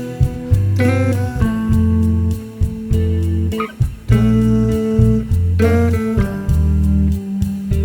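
Background music: a guitar-led instrumental with a bass line and a steady beat.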